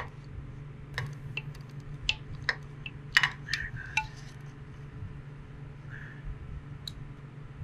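Metal wrench clinking and clicking against the oil filter and engine parts as a loosened oil filter is worked free under a V-Rod Muscle: a quick string of sharp clinks in the first half, the loudest about three seconds in, and one more near the end. A steady low hum from a swamp cooler runs underneath.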